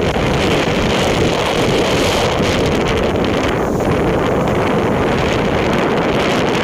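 Wind buffeting the microphone over the steady rush of ocean surf on a beach.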